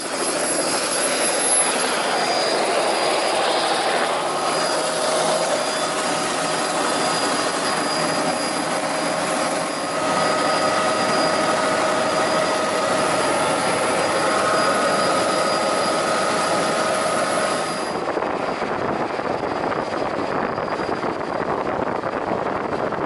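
Turbine helicopter running: a steady turbine whine over rotor noise, with the high hiss dropping away about eighteen seconds in.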